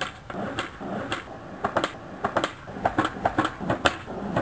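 A run of sharp, irregular clicks and taps, several a second.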